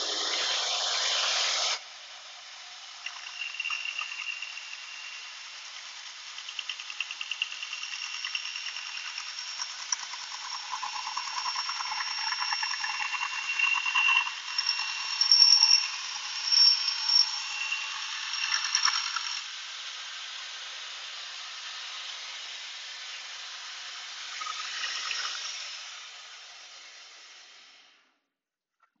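Shopsmith bandsaw with a coarse 4 TPI resaw blade ripping a thin strip off a board, an uneven rasping cut that is loudest about halfway through. The saw then runs on without cutting and fades out near the end. The track has almost no low hum, only the upper hiss of the saw.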